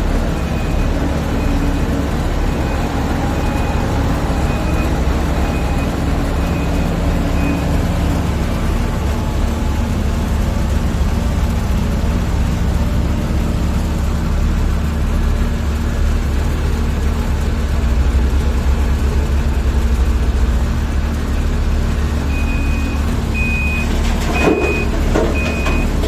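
Heavy diesel machinery, a Komatsu PC850 excavator loading a dump truck, running steadily with a deep rumble that swells louder about two-thirds of the way through. A backup alarm beeps repeatedly, about once every 0.7 s, for the first several seconds and again in the last few seconds. There is a single sharp knock near the end.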